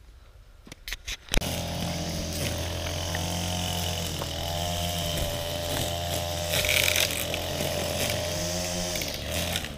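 Gas-powered string trimmer running steadily as it cuts through tall weeds. It cuts in abruptly a little over a second in after a quiet start.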